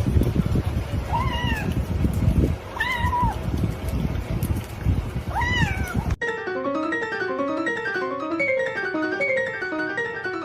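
A cat meowing three times, each meow rising then falling in pitch, over a rumbling background noise. About six seconds in, the sound cuts suddenly to bouncy keyboard music.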